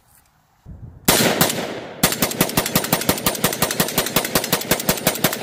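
A CETME L 5.56 mm roller-delayed blowback rifle firing a rapid, evenly spaced string of shots, starting about a second in after a brief quiet.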